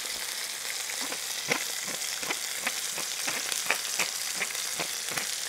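Boneless chicken thighs sizzling as they sear in hot olive oil in a cast iron skillet: a steady hiss with irregular crackling pops.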